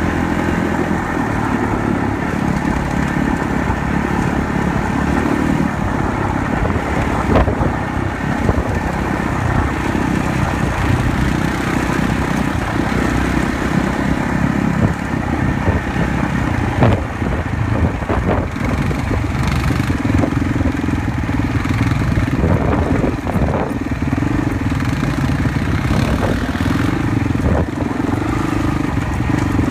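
Quad bike (ATV) engine running steadily while riding along a gravel trail, with a few sharp knocks from the rough ground.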